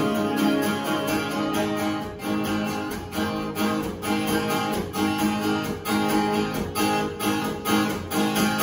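Acoustic and electric guitars strumming chords in a steady rhythm as the instrumental outro of a song, with no singing.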